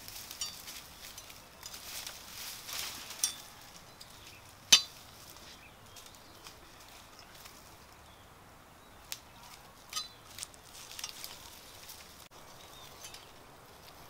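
Dry leaves, twigs and bamboo brush rustling and crackling as someone pushes through a thicket, in scattered bursts. A single sharp click about five seconds in is the loudest sound.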